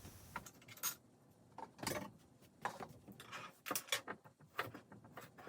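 Irregular light knocks and clicks, about a dozen of them, from kitchen things being handled and set down.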